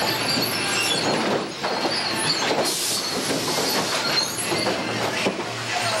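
Sawmill lumber stacker running: chain conveyors and sprockets clattering and squealing as a layer of green boards moves through, with irregular metal knocks and a brief hiss near the middle.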